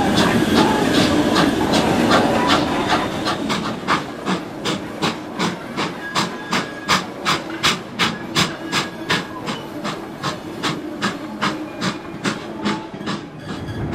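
Steam locomotive working a train, heard in a 1950s archive recording: a hiss of steam at first, then exhaust beats that settle into an even rhythm of about two to three a second.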